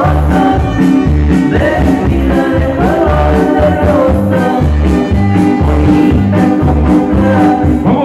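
Loud Latin dance music with a singer and a steady bass beat, played over a party sound system.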